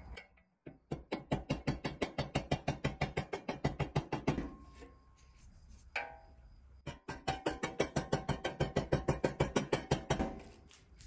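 Rapid light tapping on a plastic tool set against a tab of a 1961 Tonka toy's pressed-steel body, about eight or nine ringing taps a second, in two runs of a few seconds each, as the tab is worked down.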